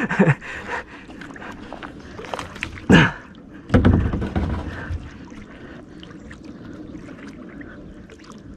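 Water swishing and lapping along a small kayak's hull as a hooked fish tows it through the water. There is a short shout about three seconds in, then a burst of low rumble, and after that a steady wash of water.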